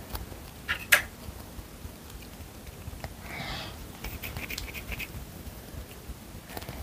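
Quiet handling of air-dry clay and sculpting tools at a table: two sharp clicks about a second in, a short rubbing hiss of palms rolling a lump of clay around three seconds in, then a patter of small ticks.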